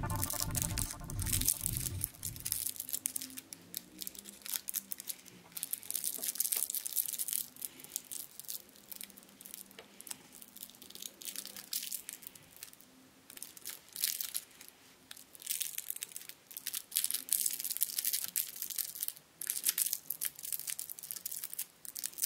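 Silvery foil candy wrapper crinkling and crackling as fingers fold and pinch it tightly, in irregular bursts with short pauses.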